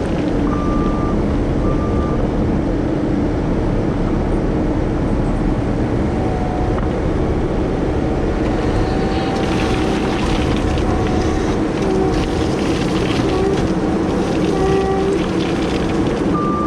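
Diesel engine of heavy equipment running steadily, with a backup alarm beeping briefly near the start. More rattle and clatter joins in over the second half.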